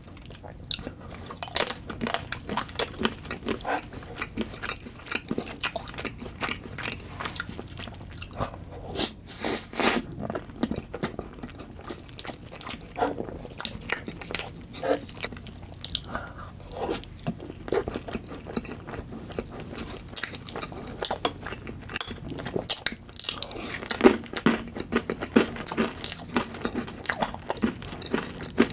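Close-miked eating of chocolate cake: repeated bites and chewing with crunchy, crackling snaps, dense throughout.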